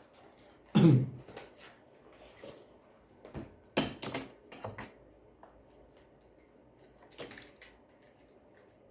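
Handling noises from working on an opened-up vacuum cleaner: scattered knocks and clicks of parts and tools being picked up and set down. The loudest is a thump about a second in, with a cluster of knocks around four seconds and a few more near seven.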